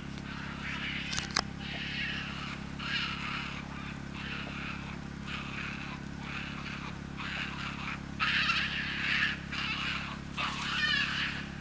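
Young European badgers calling as they play: a run of a dozen or more short, harsh calls, about one a second, louder about eight seconds in and again near the end. A single sharp click comes early, and a steady low hum runs underneath.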